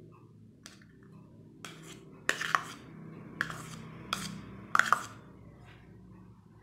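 A metal spoon clinking and scraping against a small bowl and serving plate as diced cucumber is pushed out onto grated beetroot: a string of sharp clicks, loudest in pairs about two and a half and five seconds in, over a low steady hum.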